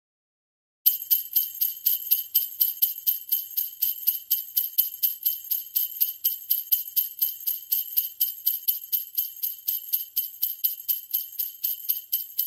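Jingle bells shaken in a fast, steady rhythm of about five jingles a second, starting about a second in after silence.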